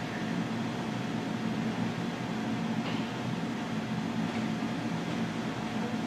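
Steady mechanical hum with hiss, with a single faint click about three seconds in.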